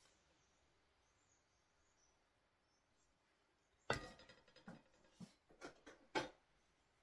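Near silence, then about four seconds in a sharp knock and a run of crinkling as a plastic piping bag of icing is put down on a metal cake turntable and handled.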